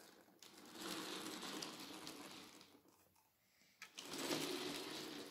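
Clockwork 00 gauge model locomotive running on its track, its spring motor and wheels whirring in two spurts with a short stop between, as the nearly run-down spring gives out and catches again.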